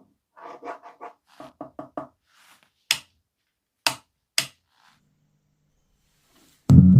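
A quick run of about ten light, slightly ringing knocks, then three sharp clicks from handling. Just before the end, loud music with heavy bass starts suddenly.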